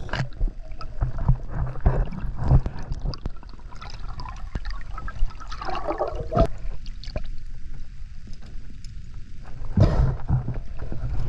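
Underwater sound picked up by a diver's camera: a steady low rumble of moving water with scattered small clicks and knocks, a brief bubbling gurgle about six seconds in, and a louder rush of water near the end.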